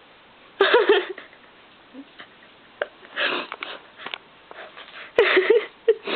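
Muffled nasal grunts and sniffing snorts from a person with a mouthful of watermelon whose tongue is stuck under it as she tries to talk, coming in short bursts about a second, three seconds and five seconds in.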